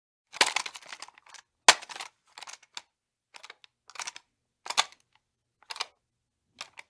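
Gun sound effect: a string of about eight sharp mechanical clicks and clacks, spaced unevenly. It opens with a short rattle, and the loudest single crack comes a little under two seconds in.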